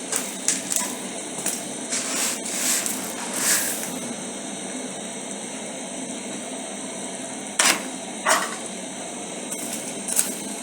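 A steady hiss from a pot of water on the boil, broken by short rustles and knocks as blocks of instant noodles are added to the pot and handled.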